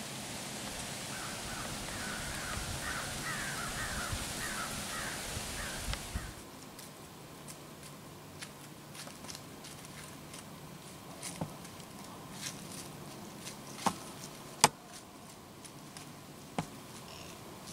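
Crows cawing in a quick series over a steady hiss in the woods for the first six seconds. After an abrupt change about six seconds in it is quieter, with scattered sharp clicks and snaps.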